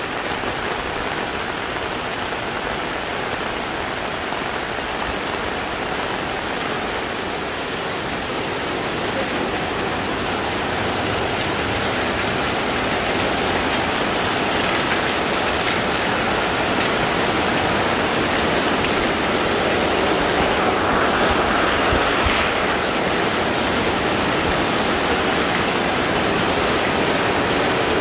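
Heavy tropical rain pouring down and falling on an umbrella held overhead, a dense steady hiss that grows louder from about halfway through.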